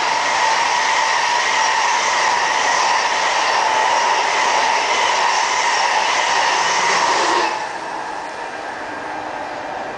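DB Class 401 ICE 1 high-speed train passing at 160 km/h: a steady loud rush of wheels on rail and air as the coaches go by, cutting off sharply about seven and a half seconds in as the rear of the train passes, leaving a fainter fading rumble.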